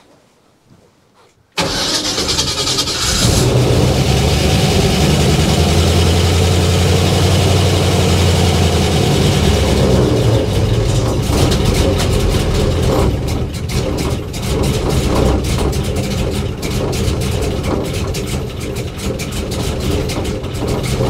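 The airboat's 5.3 V8 engine starts suddenly about a second and a half in and keeps running loudly, turning an 80-inch three-blade propeller. It is running very lean, at an air-fuel ratio of about 19.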